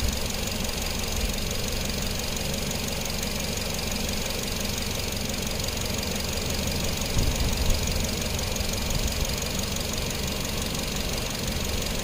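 2014 Nissan NV200's 2.0-litre four-cylinder engine idling steadily, with a fast, even ticking over the top. The engine is fully warm after about half an hour of running.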